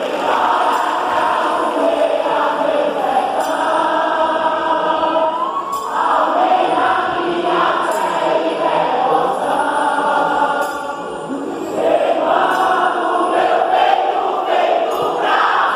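Quadrilha junina song: a group of voices singing together over musical backing, with a short lull about two-thirds of the way through.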